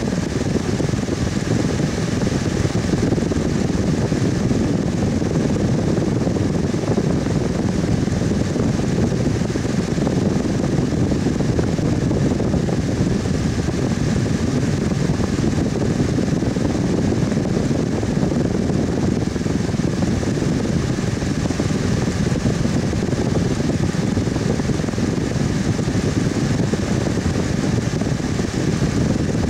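Electric fan running steadily: an even, low whooshing hum with a faint steady whine above it.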